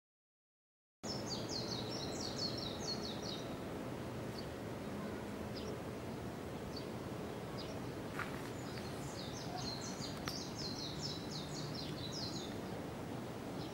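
Outdoor ambience with a songbird singing twice, each song a quick run of high chirps lasting about two to three seconds, over a low steady background hum. The sound cuts in after a second of silence.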